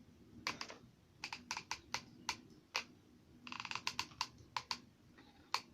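Irregular sharp clicks and taps from small craft tools being handled, a quick cluster of them with a brief ringing about three and a half seconds in.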